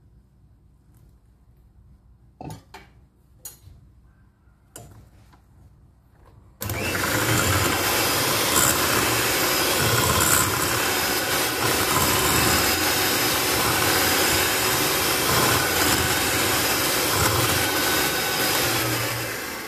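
A few light knocks and clicks, then an electric hand mixer switches on abruptly and runs steadily at one speed, its twin beaters whirring through batter in a glass bowl.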